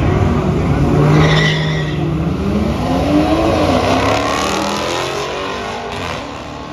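A Dodge Charger and a BMW sedan launch side by side off a drag strip start line, with a short tyre squeal about a second in. Both engines rev hard, rising in pitch through the gears as the cars pull away down the track. The sound fades as they get farther off.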